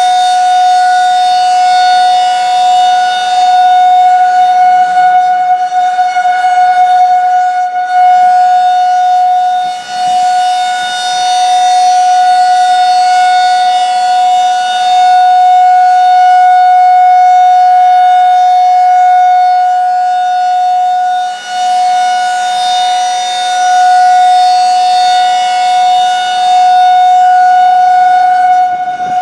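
Federal Signal 2001-SRN rotating outdoor warning siren sounding a steady, single-pitch alert tone during a test. It is loud, and its brightness swells and fades about every eleven seconds as the horn turns.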